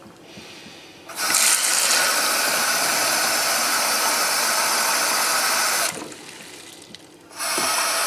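Kitchen tap running into a coffee machine's plastic water tank, filling it with a steady splashing hiss. The tap comes on about a second in, stops near six seconds, and runs again briefly near the end.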